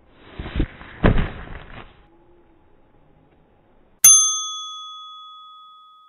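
A single bright bell ding rings out about four seconds in and fades away over about two seconds; it marks a goal. Before it there is a short rush of muffled noise with two dull thumps.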